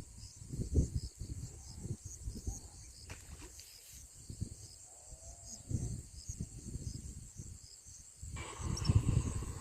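Crickets chirring steadily, with irregular low thumps and rumbles underneath, the loudest about a second in and near the end.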